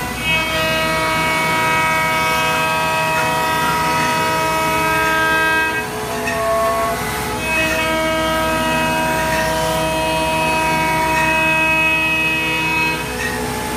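CNC router spindle running at high speed with a steady, high whine while machining an air-rifle stock. The pitch dips briefly about halfway through and then steadies again.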